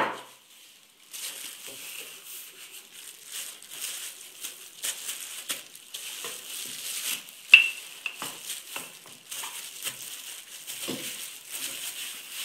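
Hands in clear plastic food-prep gloves rolling out a ball of dough with a wooden rolling pin on a plastic cutting board, then pressing it flat: the gloves crinkle, with light taps and knocks of the pin and hands on the board. One sharp click a little past halfway and a duller knock near the end.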